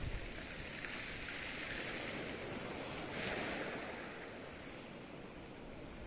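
Sea waves washing onto the beach, with a wave breaking and hissing up the shore about three seconds in, then dying down. A brief gust of wind rumbles on the microphone at the start.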